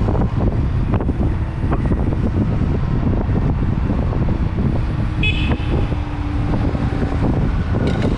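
Wind rushing over a helmet-mounted microphone with tyre and road rumble from a moving Sur Ron Light Bee X electric dirt bike. A brief high toot sounds about five seconds in.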